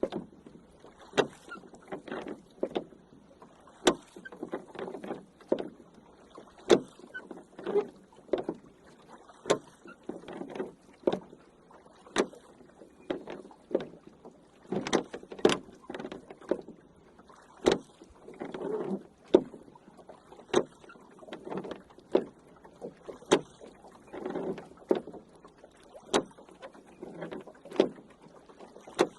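Rowing boat under oars: a run of sharp, irregular knocks and clicks, about one or two a second, from the oars working in their oarlocks, with water swishing in between.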